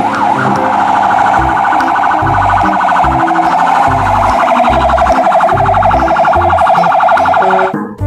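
Fire truck siren: a couple of quick rising-and-falling sweeps, then a rapid pulsing warble of about ten pulses a second that cuts off suddenly just before the end.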